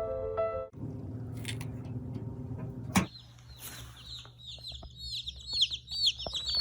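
Piano music ends abruptly less than a second in; after a sharp click about three seconds in, a brood of baby chicks peeps rapidly and continuously, many high-pitched cheeps overlapping.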